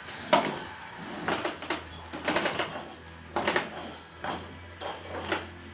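Toddler's toys clattering as she handles them: an irregular string of short hard clicks and rattles, a few at a time.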